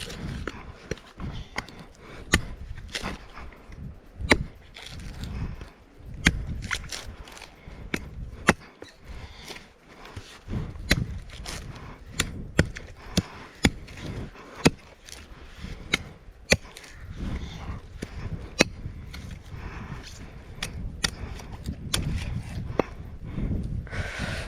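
A chopper blade hacking repeatedly at a coconut's hard husk and shell: sharp, irregular chops about once a second.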